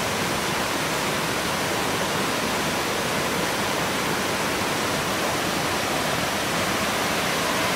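Steady, even rush of water cascading over rocks in a jungle stream.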